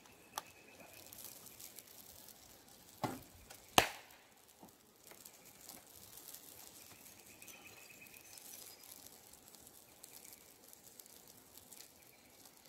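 Three sharp knocks or clicks over a faint steady background: one about half a second in, then two close together around three to four seconds in, the second of these the loudest.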